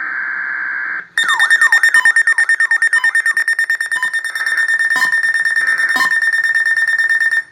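A weather radio alarm: the last second of a buzzy data burst gives way to a loud, high electronic alarm tone. The tone first pulses rapidly with repeated falling sweeps, then holds steady. Two sharp clicks come about a second apart, and the tone cuts off suddenly near the end. It is the Weatheradio tone-alarm test.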